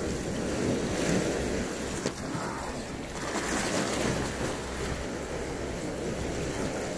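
Sea waves washing against the foot of a concrete seawall: a steady surf noise, with some wind on the microphone.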